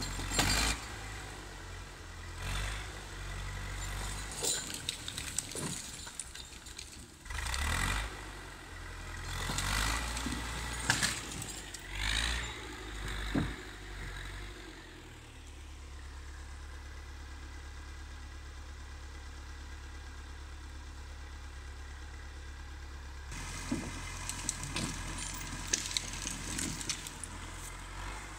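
LKT 80 forestry skidder's diesel engine running with a low drone, mixed with irregular metallic knocks and rattles. About halfway through the knocks stop for several seconds and the engine runs steady on its own, then the rattling comes back near the end.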